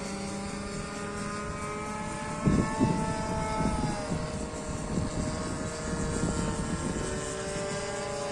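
Engines of radio-controlled model warplanes droning in flight, several engine tones sliding slowly up and down in pitch as the planes pass and change throttle. Irregular low rumbling bursts come in from about two and a half seconds in and are the loudest part.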